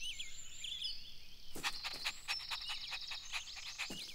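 Bird chirps twittering on a cartoon garden soundtrack. About one and a half seconds in, a cartoon puppy joins with a quick run of short, sharp sounds.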